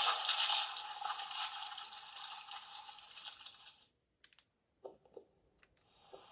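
Crackling, hissing electronic sound effect from the CSM Kamen Rider Amazons transformation belt's speaker, fading out over about four seconds. A few faint clicks follow.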